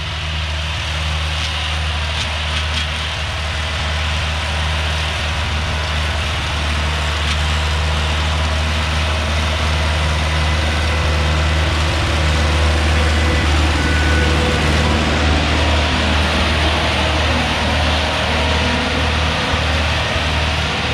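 Ursus C-360 tractor's four-cylinder diesel engine running steadily under load as it drives a Z-042 mower through standing grass, with a low, even hum that swells a little in the middle.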